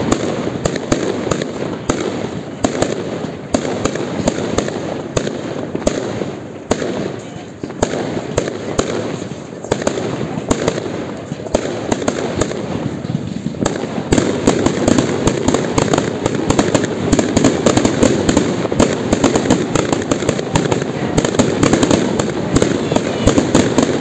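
Aerial fireworks bursting in rapid succession, a dense run of bangs and crackles that grows louder and thicker about halfway through.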